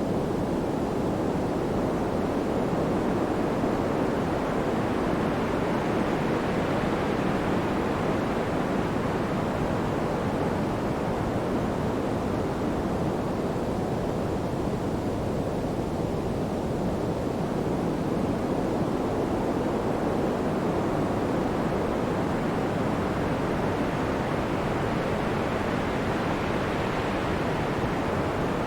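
Pink noise: a steady, even hiss weighted toward the low end, its upper range slowly swelling and fading over many seconds.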